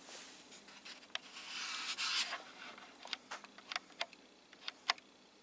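Faint handling of a circuit board and its newly tacked IC socket: a brief rubbing scrape about a second and a half in, then a series of light clicks and taps.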